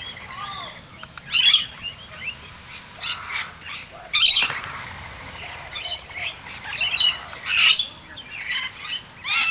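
A mixed flock of rainbow lorikeets and noisy miners squawking, with many short, harsh calls overlapping one another.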